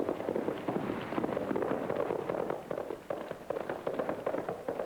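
Horses' hooves clattering in a fast, irregular run of knocks.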